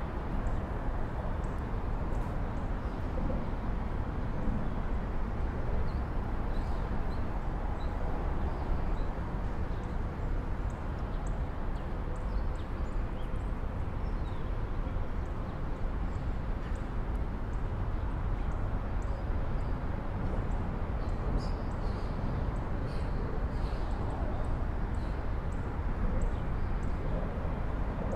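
Steady low rumble of distant city traffic, with small birds chirping now and then above it.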